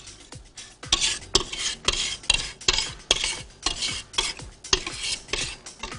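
A spatula scraping the inside of a stainless steel mixing bowl in repeated strokes, about two or three a second, clearing the last of the cake batter into the baking tray.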